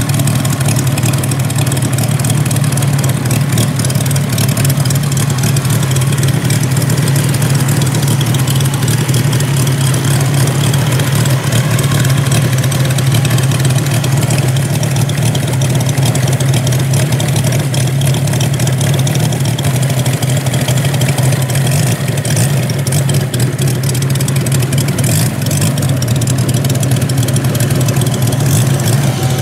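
Moki 250cc five-cylinder radial petrol engine of a quarter-scale Corsair model running steadily at low throttle, its propeller spinning.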